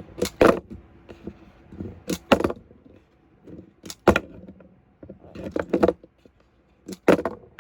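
Toy monster trucks knocking and clattering, several separate sharp hits and rattles a second or two apart as the trucks are run and tumble.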